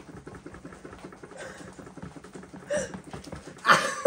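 Spoon stirring and squishing mashed jello in a cup, a fast run of small wet clicks, with two louder sounds near the end, the second the loudest.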